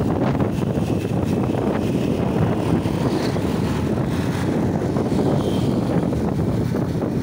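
Steady wind rush on the microphone mixed with motorcycle engine and road noise while riding along in traffic.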